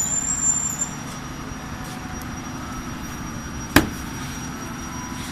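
One sharp knock about four seconds in, over a steady low background rumble.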